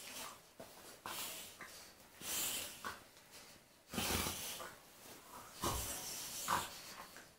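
A golden retriever and a Labrador puppy play-fighting, with breathy huffs and mouthing noises that come in about five short bursts.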